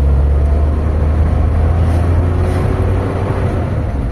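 Toyota Hi-Ace van's carbureted engine running with road noise while the van is driven, a steady low rumble. The carburetor has just been cleaned and tuned, and the van is pulling without hesitation.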